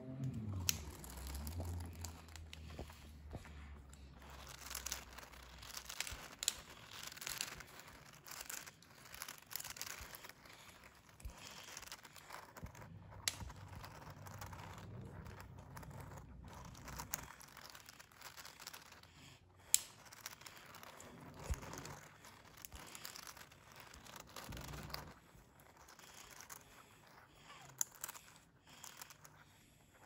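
Small plastic clicks and rustles of a segmented twist-snake puzzle being turned joint by joint in the hands, with a few sharper clicks along the way.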